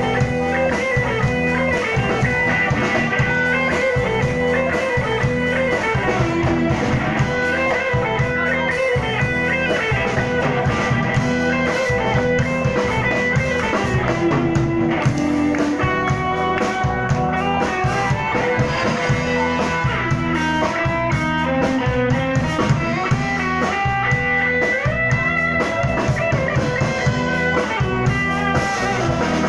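Live rock band playing: electric guitars over bass guitar and a drum kit, with sliding, held guitar lines over a steady beat.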